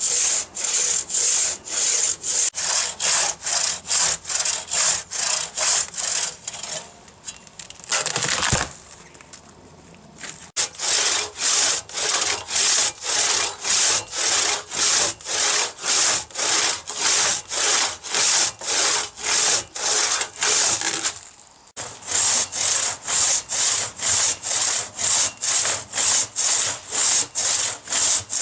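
Hand crosscut saw cutting through a eucalyptus log in quick, even strokes, about two to three a second. The sawing stops for a few seconds with a single short knock, then starts again, with another brief pause later.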